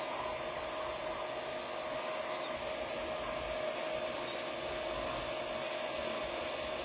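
3D printer running, a steady whir with a constant tone through it.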